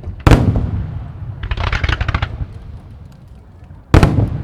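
Aerial fireworks shells bursting: a loud boom about a quarter second in and another near the end, each followed by a low rumbling echo, with a run of rapid crackling in between.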